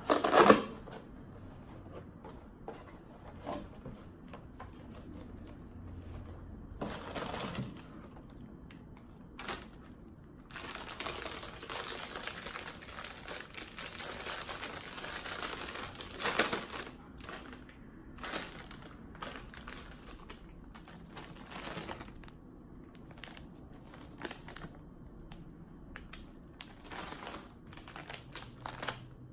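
Handling noise from a white cardboard box and a potato chip bag: a sharp loud sound as the box is grabbed at the start, then scattered clicks and rustles. For several seconds around the middle, a dense rustle as the foil chip bag is crinkled and torn open, with more crinkling near the end.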